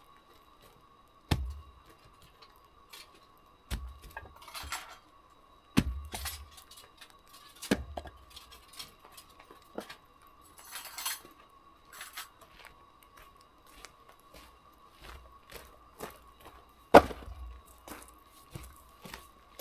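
Firewood being unloaded: heavy knocks of logs dropped onto a pile, about five of them several seconds apart, the loudest near the end, with rustling and smaller clatters in between. A faint steady tone runs underneath.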